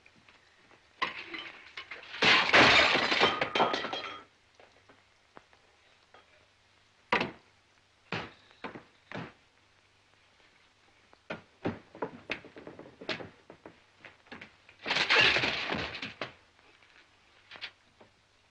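Dishes crashing and breaking twice: a long crash about a second in and another near the end, with short clinks and knocks of crockery between.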